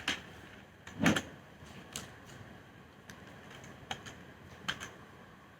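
Keys of a gaming keyboard being pressed: about eight scattered, irregular clicks, with a heavier knock about a second in.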